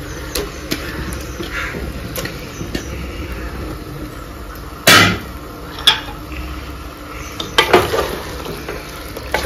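Raw chicken pieces going into an aluminium pressure cooker over masala, with metal clanks against the pot. The loudest sharp knock comes about halfway through. Near the end a metal spoon starts stirring and knocking against the cooker's side.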